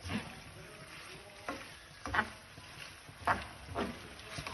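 Pasta being stirred and tossed through a thick sauce in a pan: a utensil scraping and knocking against the pan in irregular strokes, about six of them, roughly one a second.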